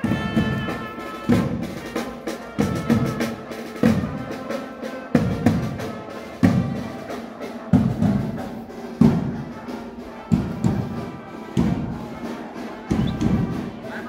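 Music with a slow, steady drum beat, about one stroke every second and a quarter, under sustained instrumental notes.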